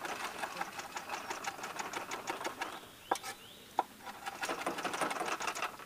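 Kitchen knife rapidly chopping parsley on a wooden cutting board: a quick run of blade strokes against the board, a short break a little past halfway with two single louder knocks, then another fast run.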